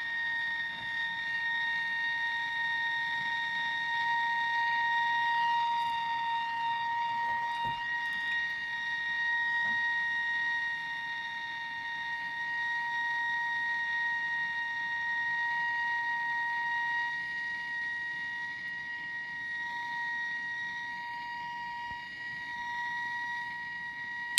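Gas blowtorch flame burning steadily over a copper pipe joint, a constant high whistling tone over a soft hiss. It cuts off suddenly at the very end as the torch is shut off.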